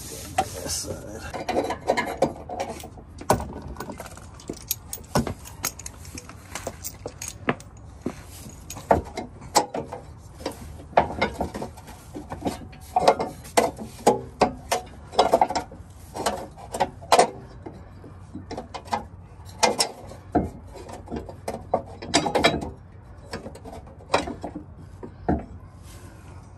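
Irregular metallic clicks, clinks and knocks of hand tools working the bolts of a tow hitch being fitted under a car, busiest in the middle.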